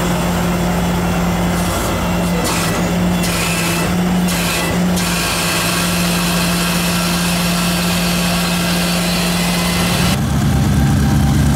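Heavy vehicle engine running steadily, a constant hum under a broad hiss. About ten seconds in the sound changes to a deeper, louder engine rumble.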